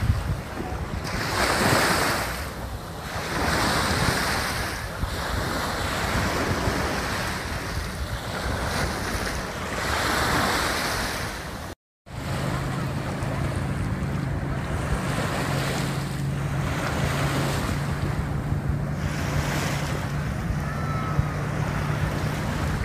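Small lake waves washing up on a sandy shore, surging every couple of seconds, with wind buffeting the microphone. After a brief cut about halfway through, steady wind noise continues with a low steady hum underneath.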